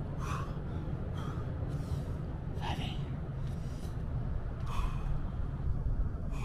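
A man breathing hard from exertion during burpees, push-ups and squats, with short, sharp exhalations about every one to two seconds. A steady low rumble sits underneath.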